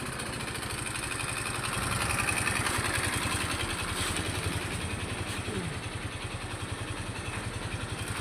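Yamaha Mio i 125 scooter's single-cylinder engine running with a rapid, steady pulse. The engine ran dry of oil, which the owner blames for its knock and its loss of power.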